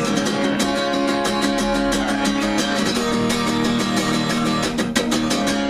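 A live rock band playing an instrumental passage between vocal lines, led by strummed guitars.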